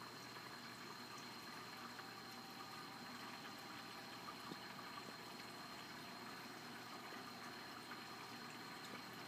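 Faint, steady rush of water circulating in a reef aquarium, moved by a VorTech MP40w powerhead, with a thin high whine held steady over it.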